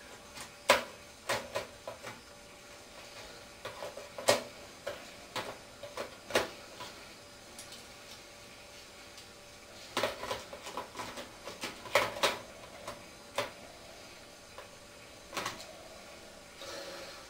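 Irregular clicks, knocks and light clatter of a telescopic sight being unclipped from the top rail of an airsoft M249 and handled. The sharpest click comes under a second in, with a busier run of clicks around ten to thirteen seconds in.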